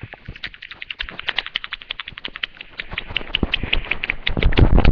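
Mouth-made beatbox imitation of a trap beat: rapid hi-hat-like clicks, about ten a second, growing louder, with deep bass-like hits joining in about four seconds in.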